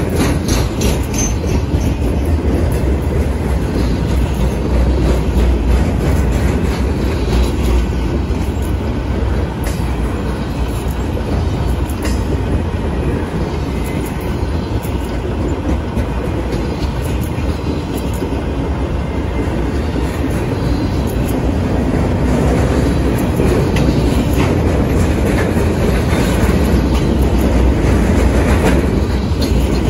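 Freight train's loaded flatcars rolling past close by: a steady rumble of steel wheels on rail, with scattered clicks as the wheels cross rail joints.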